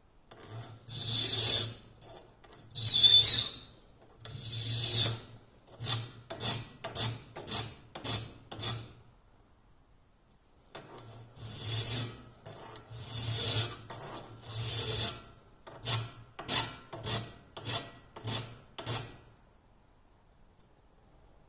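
A flat file is drawn by hand across the teeth of a Woodmizer bandsaw blade, steel rasping on steel. Three long strokes are followed by a run of about six short, quicker strokes. After a pause the same pattern comes again.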